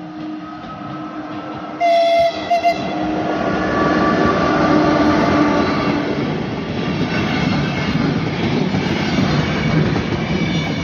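RegioJet passenger train passing close by: the locomotive sounds two short horn blasts about two seconds in, then the coaches roll past with loud, steady wheel-on-rail noise.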